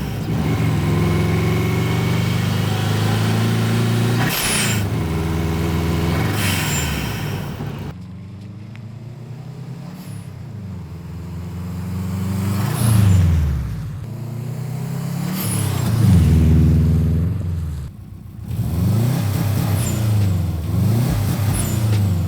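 Turbocharged Subaru engine revving up and dropping back several times; each time the throttle closes, an NGR Type S blow-off valve vents the boost with a sharp hiss and a high whistle. The sound drops in level about eight seconds in.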